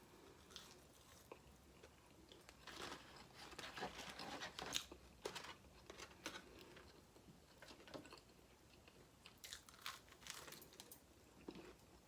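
A person chewing and biting mouthfuls of burger and fries close to the microphone: faint, irregular mouth clicks and crunches, busiest about three to five seconds in and again near ten seconds.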